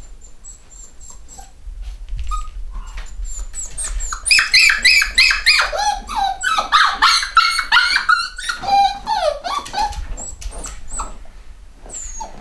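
Black cockapoo puppies whining and yipping in short, high-pitched cries. The cries come thick and fast, several a second, from about four seconds in until about ten seconds, with a few scattered ones before and after.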